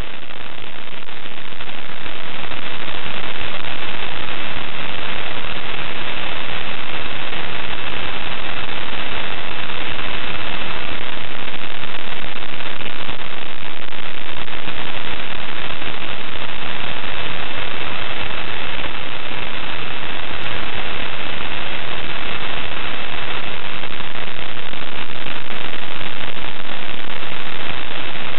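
Loud, steady radio static hiss with a thin high tone running through it, swelling up over the first couple of seconds. This is the audio of the ISS live video downlink carrying only noise.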